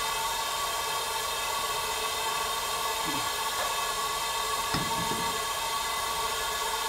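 Steady workshop hiss with several held tones running under it, cutting off sharply at the end; a light clink about five seconds in as a wheel bolt is fitted.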